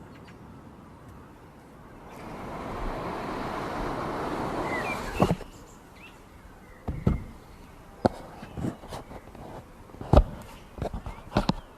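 Packaging being handled: a few seconds of steady rustling or sliding that stops sharply, then a scatter of sharp clicks and knocks, with a bird chirping faintly.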